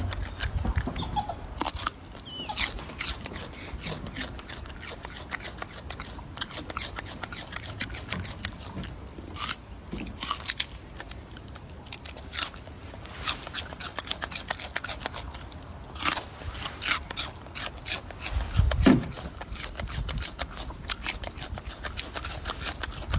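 Golden snub-nosed monkey chewing berries: a run of irregular smacking and crunching clicks, some louder than others.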